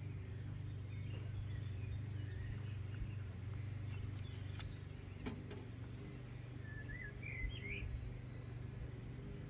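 A steady low engine-like hum with a few sharp metallic clicks about halfway through, and small birds chirping, most clearly near the end.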